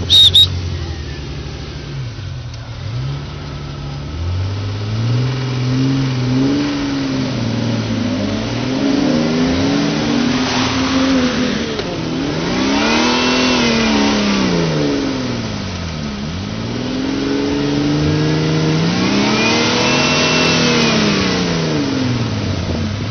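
Jeep Cherokee XJ engine revving up and down while the Jeep ploughs through deep mud, the revs swelling and dropping again every few seconds as the tyres spin. A brief, loud, high-pitched sound comes right at the start.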